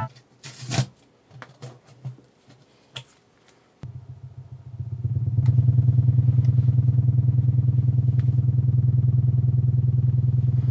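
A few handling knocks and clicks on the bare subwoofer drivers, then from about four seconds in the two 6.5-inch Sony home-theater subwoofers start playing a very low test tone: a loud, steady buzzing hum that pulses several times a second. The two drivers are wired out of phase, one pulling in as the other pushes out, which cancels much of the bass.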